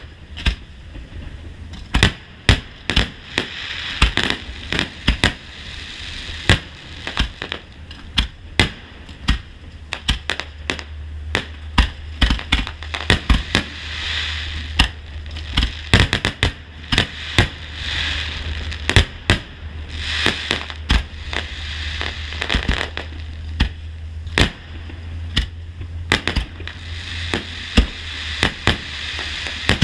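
Fireworks display: a rapid run of sharp aerial-shell bangs, several a second, over continuous crackling. A steady low rumble joins about a third of the way in.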